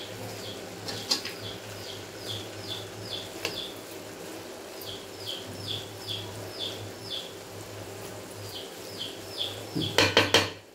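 Metal spatula stirring halwa in an aluminium kadai, with a few clicks and then a quick run of loud clanks against the pan near the end. Over a steady low hum, a bird gives quick series of short falling chirps, about three a second, in three runs.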